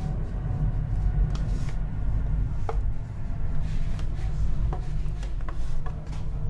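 Scattered clicks and crinkles of a disposable aluminium foil tray being handled, over a steady low rumble.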